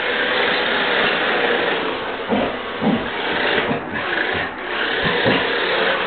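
Toy remote-control car's electric motor whirring and its tyres scrubbing across a tiled floor as it drifts, with a few short knocks around two to three seconds in and again near five seconds.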